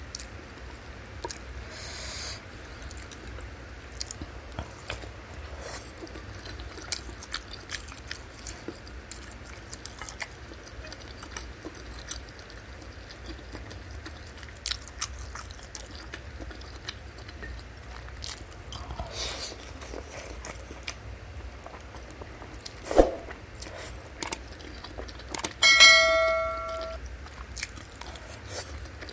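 Close-miked eating sounds: chewing and mouth clicks, wooden spoon and fork clicking in a ceramic bowl, and slurps of soup. A sharp knock comes about 23 s in. Near the end a dish is struck and rings with a clear tone for about a second, the loudest sound.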